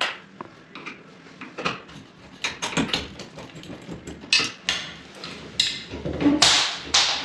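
Metal ceiling-fan mounting parts being handled and worked loose: a series of sharp clicks, knocks and rattles, with louder scraping about two-thirds of the way in.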